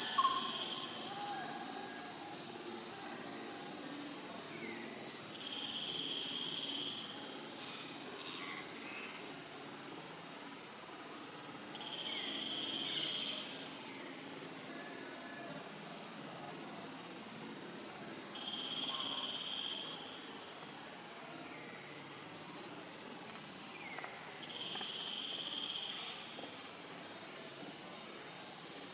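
Chorus of crickets or similar insects keeping up a steady high-pitched trill, with a second call repeating about every six seconds, each lasting about a second. There is a brief louder sound right at the start.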